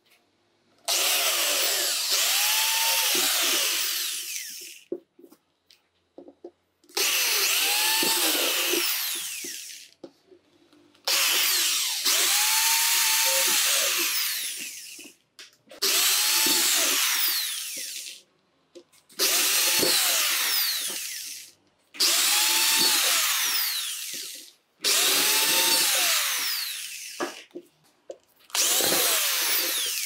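Electric drill with a 4 mm bit drilling holes through a sheet-metal enclosure, in about eight short runs of two to four seconds each. The motor whine rises as it spins up and falls as it stops, with brief pauses between holes.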